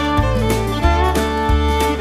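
Background music: an upbeat country or bluegrass tune with fiddle over a steady plucked bass line.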